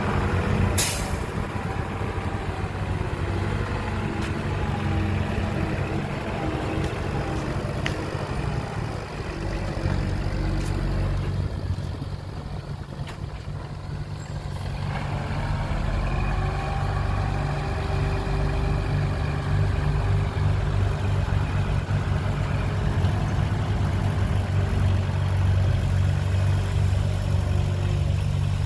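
Heavy diesel engines of earthmoving machines (bulldozer and dump trucks) running steadily. There is a short sharp sound about a second in. The engine sound drops off briefly about halfway, then builds up louder again.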